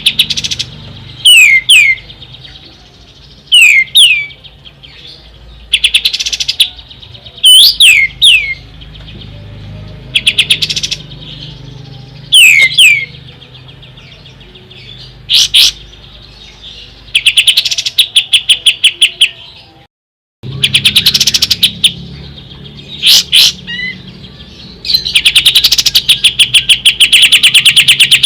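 Kapas tembak bulbul singing loudly: sharp, quickly falling whistled notes alternating with rapid stuttering rattles. The song briefly cuts out about two-thirds of the way through.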